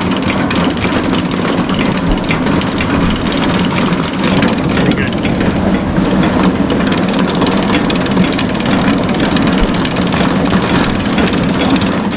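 Farm machinery running steadily: an engine with a continuous clattering rattle. The sound cuts off suddenly at the very end.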